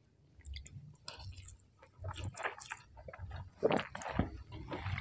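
A person slurping and chewing khanom jeen rice noodles in fish-kidney curry. The sounds come in short, irregular bursts, faint at first and loudest a little before four seconds in.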